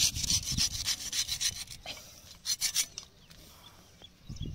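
A large knife blade shaving and scraping the fibrous husk of a palmyra palm fruit (ice apple). The strokes come in quick rasping bursts, one during the first second and another about halfway through, with a couple of low thuds near the end.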